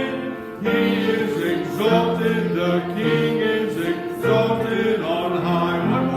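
A church congregation singing a hymn together, held notes changing about once a second, with a brief breath-pause near the start.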